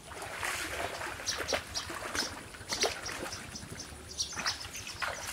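Muddy water splashing and sloshing as a plastic basket is dipped and shaken through it, in short irregular splashes.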